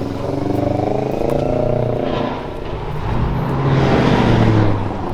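Car engine sound, growing louder for about a second near the end before dropping back.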